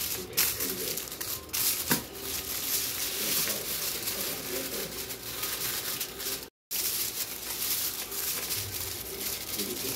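Aluminium foil crinkling and being pressed down to cover a baking dish, with a few sharp knocks in the first two seconds.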